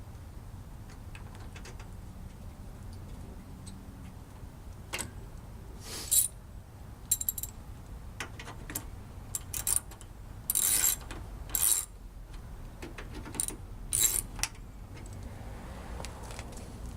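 Hand ratchet wrench clicking in short bursts of a second or less, several times over, as bolts are run in loosely.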